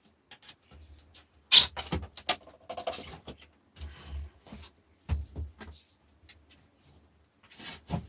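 Thick plastic sheet being pried and worked out of a PC monitor's casing: irregular plastic clicks, scrapes and creaks, with a sharp click about one and a half seconds in.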